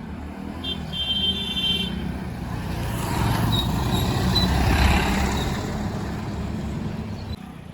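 Heavy diesel engines of a backhoe loader and tipper truck running, with a rushing noise that swells to its loudest about five seconds in and a brief high whistling tone about a second in.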